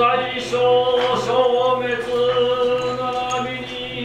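Male voices chanting a Buddhist sutra in a drawn-out, sung tone, each phrase gliding and renewing about every second.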